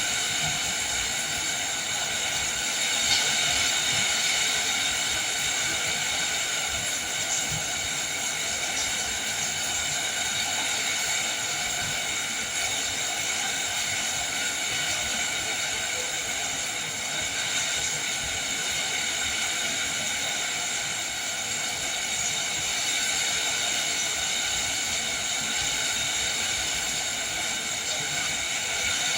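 Steady rain falling in a windy downpour, an even wash of noise that holds at one level throughout.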